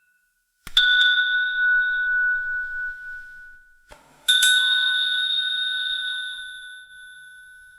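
Elevator arrival chime dinging twice, about three and a half seconds apart, each a bright bell tone that rings out and slowly fades, echoing in a hallway.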